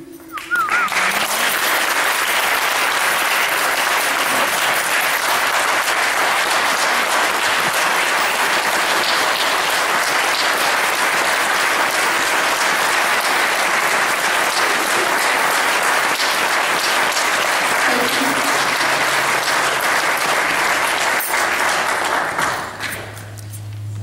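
Audience applauding, starting suddenly just after the start and fading away near the end.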